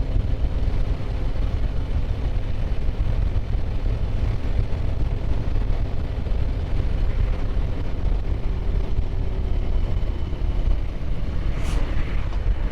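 Harley-Davidson touring motorcycle's V-twin engine running steadily at road speed, with wind noise over the microphone; a short hiss comes through near the end.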